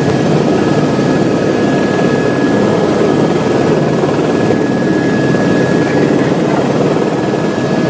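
Helicopter engine and rotor noise heard from inside the cabin: a loud, steady drone with a faint steady high tone over it.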